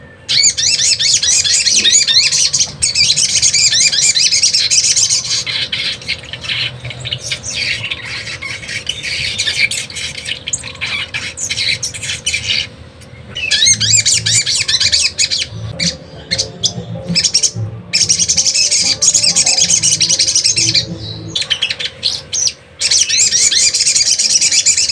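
Young brown-throated sunbird (sogon) in a cage singing its fast, high, chattering wild song in long runs of trills, broken by short pauses about every few seconds.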